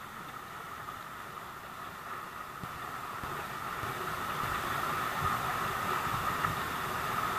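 Small waterfall pouring into a rock pool: a steady rush of water that grows a little louder after a couple of seconds.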